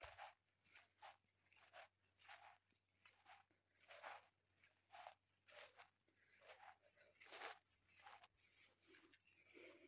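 Faint footsteps of someone walking at a steady pace, about one and a half steps a second.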